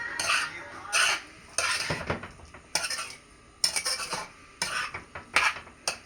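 A spoon scraping and knocking against a cooking pot as food frying in it is stirred, in repeated short strokes at uneven spacing.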